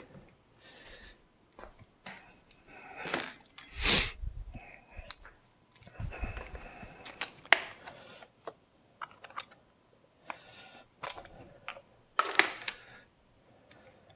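Hand tools and small metal parts being handled: scattered clicks and clinks with short bouts of rustling and scraping, the loudest knock and rustle about four seconds in.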